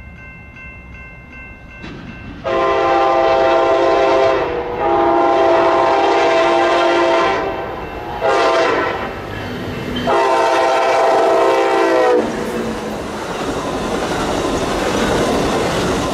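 Passenger train's air horn sounding the grade-crossing signal, long, long, short, long, as the train approaches. After the last blast, the train's running and wheel noise rises as it draws near.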